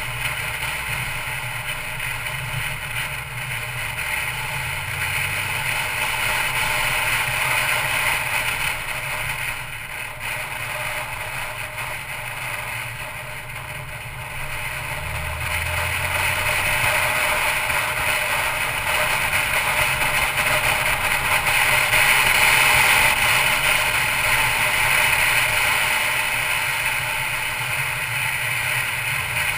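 Mercedes-Benz C250 Coupe on the move: steady road and tyre noise with a low engine hum, growing louder for a stretch past the middle before easing off.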